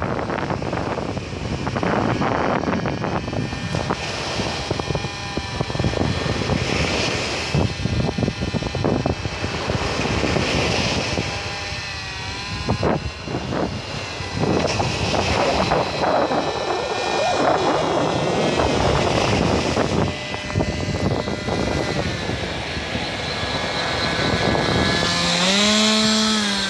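Radio-controlled paramotor model's propeller motor running with a steady whine, under heavy wind buffeting on the microphone. Near the end the motor's pitch rises and grows louder as the model flies close past.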